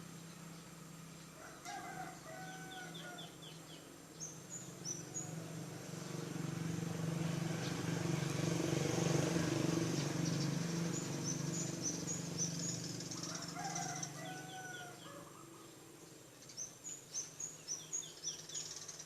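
Bird calls: short chirps and trills repeating in a pattern that recurs about every 13 seconds, as on a looped lure recording. A rushing noise swells up in the middle and fades again.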